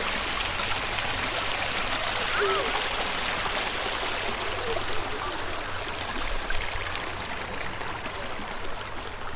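Steady rush of flowing water, like a stream.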